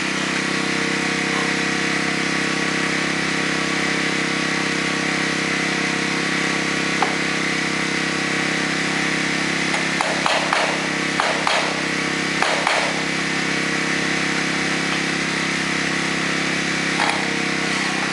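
A small engine running steadily at one speed, an even hum. A few brief sharp sounds cut in between about ten and thirteen seconds in, and once more near the end.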